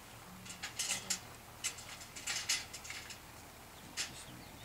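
Irregular crinkles and clicks from handling a mini greenhouse's clear plastic cover and tubular frame, coming in short clusters.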